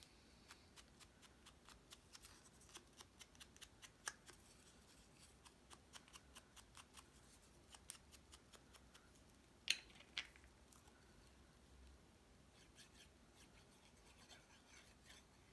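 Faint, quick clicking from paper-crafting handwork on card stock, several clicks a second for most of the stretch, with two louder clicks about ten seconds in.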